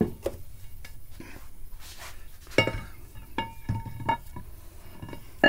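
A new flywheel being handled and set against the back of the engine: faint scuffs and light knocks at first, then, about halfway through, a metal clank with a ringing tone, followed by a few more ringing clinks.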